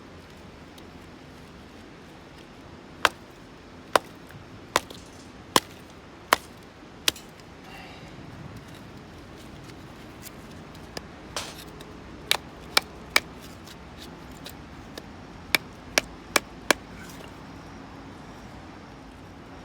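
Firewood being chopped or split: sharp single strikes into wood. First comes a run of six evenly spaced strikes, then a few scattered ones, then four quicker strikes near the end.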